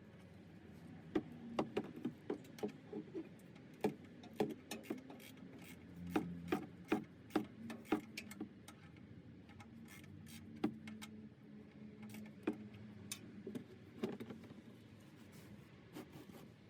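Irregular light clicks, taps and rubbing of hands and tools working at the drain plug under a truck's oil pan, the taps coming in clusters with short pauses.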